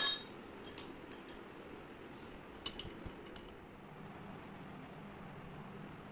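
Steel flat bar clanking down onto a steel bending jig right at the start, followed by a few lighter metal clinks and taps a second or so apart.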